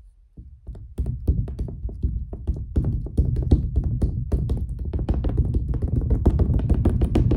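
A wide flat paint spreader drummed rapidly against a stretched canvas wet with paint, a few separate taps at first and then a fast, steady roll from about a second in, the taut canvas sounding low like a drum.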